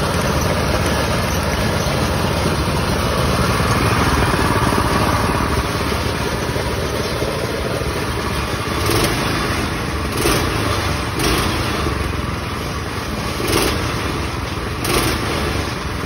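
Two small single-cylinder gas engines on a go kart running together, with about five short surges in loudness in the second half.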